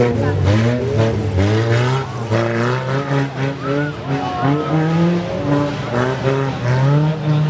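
Several wreck-race cars' engines revving hard, their pitch climbing and falling over and over as they race.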